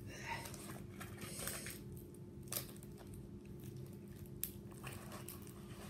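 Faint, scattered crinkles and clicks of plastic packaging being handled, over a steady low hum.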